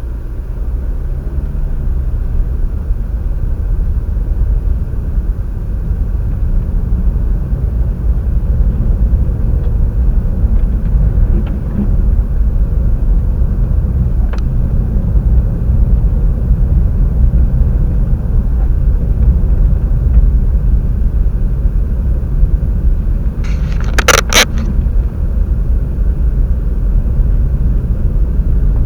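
High wind buffeting the microphone, a loud, steady low rumble. A brief cluster of sharp clicks about three-quarters of the way through.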